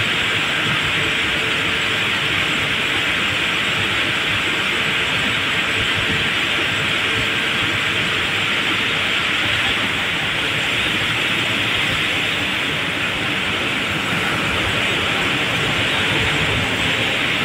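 Steady, unbroken machinery noise at a palm-oil mill during shell loading, with a strong hiss and a faint steady hum underneath.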